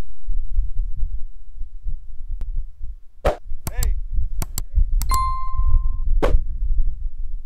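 Subscribe-button animation sound effects: a few short pops and mouse clicks, then a bell ding ringing for about a second just past the middle, with one more pop after it, all over a heavy low rumble.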